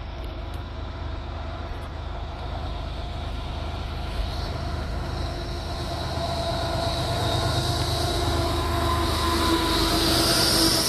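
A train approaching along the tracks, getting steadily louder, with a low engine drone, several held tones and a rising hiss in the second half.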